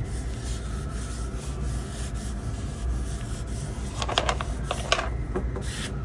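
Soft squeegee rubbing back and forth over a vinyl decal, pressing it down onto the surface, with a few sharper scraping strokes about four to five seconds in.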